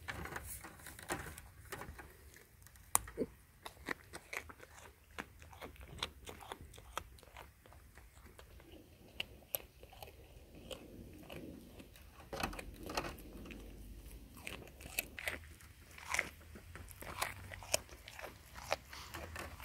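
A goat chewing raw carrot sticks: a quick, irregular run of crisp crunches as its teeth break the carrot.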